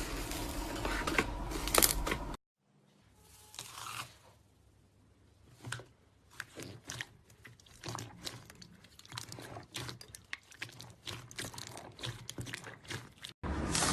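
Slime being squeezed and pressed by hand, giving a crunchy crackling with many small clicks and pops. It cuts off about two seconds in, returns quieter with scattered pops and crackles, and comes back louder near the end.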